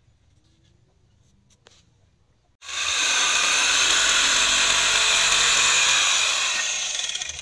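DCA electric jigsaw cutting through a thick hardwood board. It starts suddenly about a third of the way in, runs steadily, and eases off just before the end. Before it come a few faint scratches of a marker drawing on the wood.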